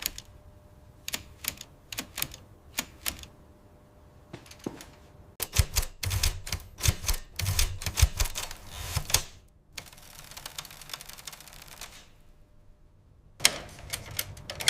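Manual typewriter keys clacking: scattered single strikes, then a quick run of clacks in the middle.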